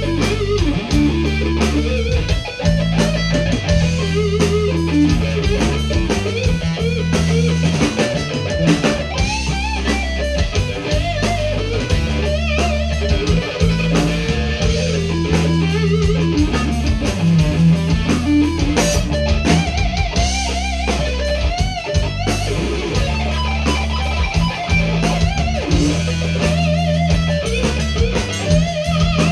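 Rock band playing live, an instrumental passage with electric guitar to the fore over bass guitar and a steady drum beat.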